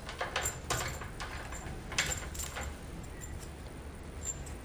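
A handful of sharp clicks and light knocks as cable connectors are handled and plugged in, the loudest about two seconds in.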